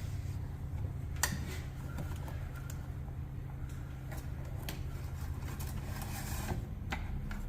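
Steady low background hum with a few light clicks and taps as the oil dipstick is handled.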